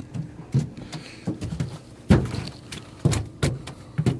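Irregular knocks and thumps on a metal boat deck as a freshly caught walleye is handled, about six in all, the loudest about two seconds in.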